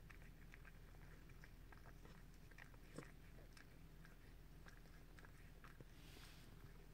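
Faint, irregular wet clicks and smacks of a Bengal mother cat licking and mouthing her newborn kitten clean just after the birth, with one sharper click about three seconds in and a brief soft rustle near the end.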